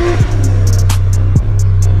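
Music with a heavy, steady bass line, deep falling kick-drum hits about twice, and quick regular hi-hat ticks.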